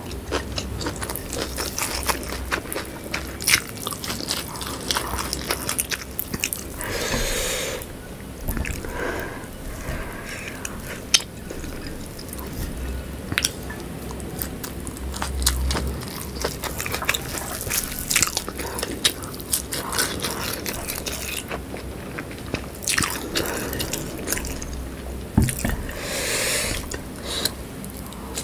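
Close-miked eating of sambal with whole shallots: crunchy biting and chewing with many sharp crunches, and a few longer hissing sounds between bites.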